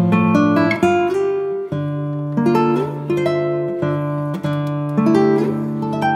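Background music: a guitar picking a melody over held bass notes.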